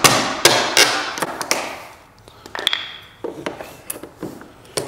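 Hammer blows on a steel flat pry bar, a few sharp strikes about 0.4 s apart, driving it behind a painted baseboard. Then the bar levers the trim loose with small cracks and clicks and one short metallic ping.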